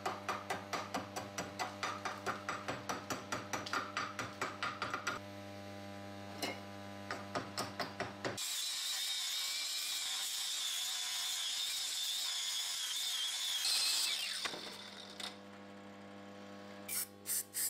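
Hammer rapidly striking a freshly welded steel end cap on an axe head, about four or five light blows a second, knocking the weld down flat. About eight seconds in, a hand-held power grinder sands the weld smooth for about six seconds, then winds down with a falling whine.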